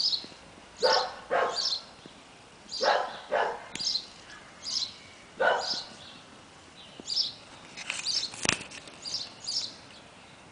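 An animal calling in short, repeated calls, mostly in pairs, every one to two seconds, with one sharp click about eight and a half seconds in.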